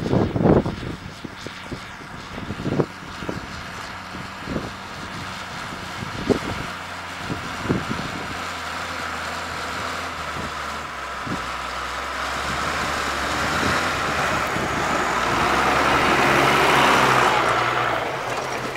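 John Deere 3650 tractor's six-cylinder turbocharged diesel running steadily under load while ploughing, with a few sharp knocks in the first seconds. The engine and rushing noise grow louder through the second half as the tractor and plough pass close, peak shortly before the end, then ease.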